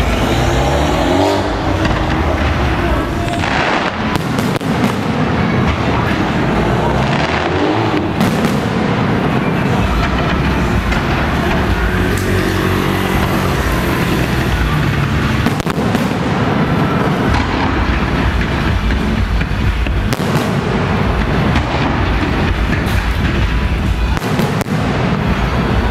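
Fireworks show going off in a dense, continuous barrage of bangs and crackles, with shells bursting overhead.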